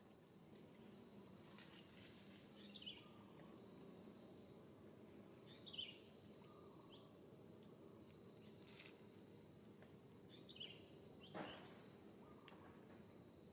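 Faint steady high-pitched insect drone, with a few short, falling high chirps over it, about four in all.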